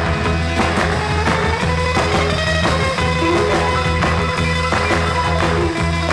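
Rock music soundtrack with guitar over a steady, sustained bass line.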